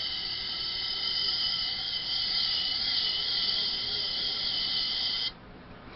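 Compressed gas hissing steadily from a canned air horn with its plastic reed missing, so it vents the can's gas without sounding the horn. The high hiss carries a few faint whistling tones and cuts off sharply about five seconds in as the button is released.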